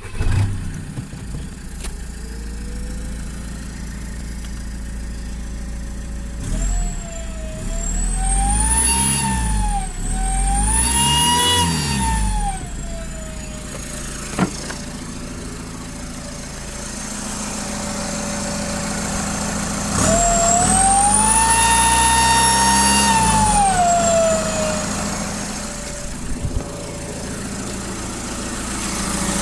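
Common rail TDI diesel engine running just after start-up, revved twice briefly and then held up once, with a loud siren-like whine that rises and falls in pitch with the revs. The whine is the sound of a failing turbocharger.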